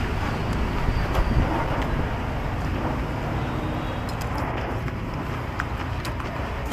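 Steady low rumble of street traffic, with a few light clinks of a spoon and chopsticks against the ceramic soup bowl.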